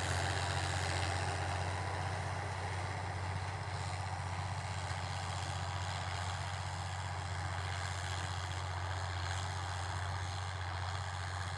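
Torpedo TD 90 tractor's diesel engine running steadily under load while pulling a 22-disc Quivogne disc harrow through tilled ground. It grows slightly fainter as the tractor moves away.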